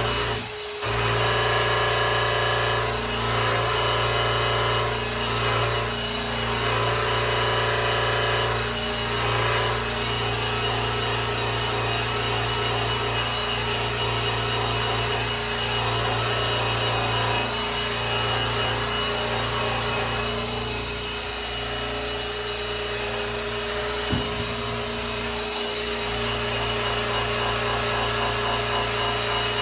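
Electric polisher running steadily, its pad rubbing over a grand piano's lacquered finish, the pitch and level shifting slightly as it is pressed and moved. A brief drop just after the start and a single sharp click about 24 seconds in.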